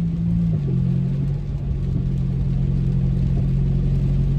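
Car engine and road noise heard from inside the cabin while driving: a steady low hum whose pitch steps down about half a second in, over a constant rumble.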